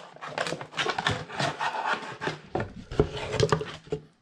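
Hands rummaging in a cardboard shipping box, parts rubbing and scraping against the cardboard, with frequent small knocks.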